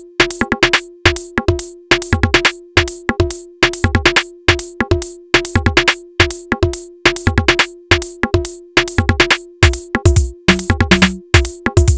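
Electronic DJ backing track: a fast, even drum-machine beat over a held tone, with a deeper bass part coming in near the end.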